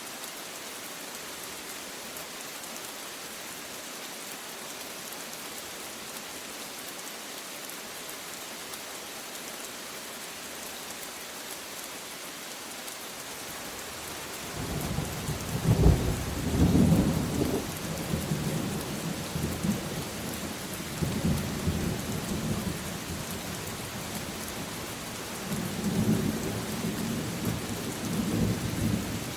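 Steady rain falling. About halfway through, thunder breaks in with a loud crack and then rolls on in swells of low rumbling.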